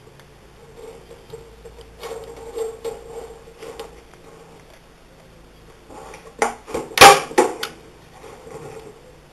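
Hand staple gun driving staples through hardware cloth into the wood of a beehive: sharp snaps about two-thirds of the way in, the loudest near seven seconds, after some shuffling and tapping as the mesh is positioned.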